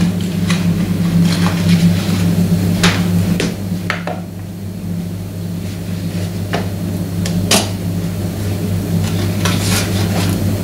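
Scattered clinks and knocks of dishes and utensils as butter is handled and unwrapped for a cake batter, over a steady low hum. The knocks come at uneven intervals, with a quieter stretch around the middle.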